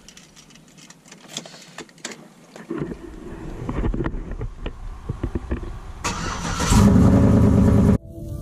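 A Chevy pickup truck's engine starts about three seconds in after a few light clicks, and runs. It gets much louder near the end with engine and road noise as the truck drives, then cuts off as music begins.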